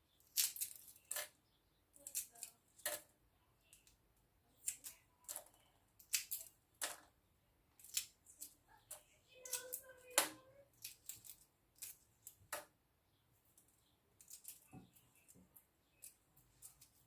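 Shell of a hard-boiled egg being cracked and peeled by hand: irregular sharp crackles and clicks, some in quick clusters.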